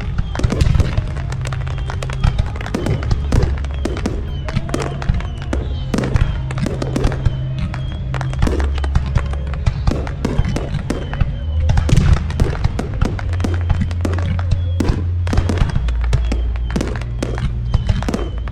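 Fireworks going off in rapid, non-stop succession, many sharp bangs and crackles, over loud music with a heavy, steady bass line.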